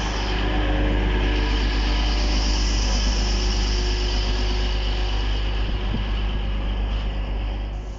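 Diesel train passing through the station: a loud, steady rumble of engine and wheels on rail with a high hiss, easing off near the end.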